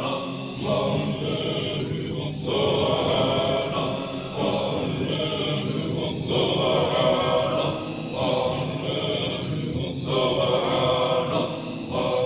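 Chanted singing of a tasbih, the Islamic glorification of God, with a short sung phrase repeated about every two seconds.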